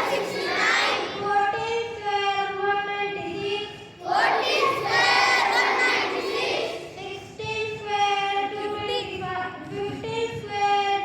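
A group of children singing together in unison, phrases of long held notes.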